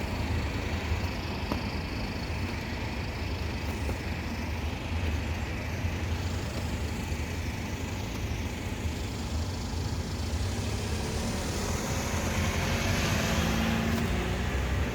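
Steady outdoor background noise: a low rumble with a hiss over it, swelling with a low hum near the end.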